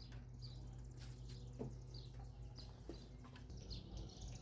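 Faint bird chirping: short, high, falling calls repeated every half second or so, with a buzzy trill now and then, over a low steady hum.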